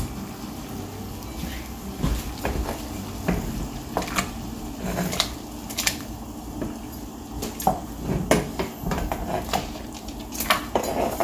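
Raw chicken feet dropped one by one into a pot of boiling water, giving irregular knocks and clinks against the pot and the plastic cutting board.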